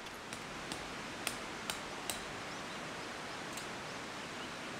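Steady rushing outdoor background noise, with a handful of sharp light knocks or clicks, most of them in the first two seconds and one more later.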